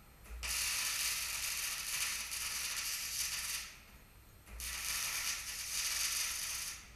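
Electric arc welding on a steel beam: two welding runs, each an even sizzling crackle, the first about three seconds long and the second, starting a second after it stops, about two seconds long.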